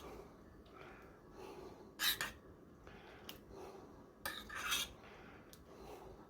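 Faint background handling noise: scattered small clatters and scrapes, with two louder short clatters about two seconds in and about four and a half seconds in.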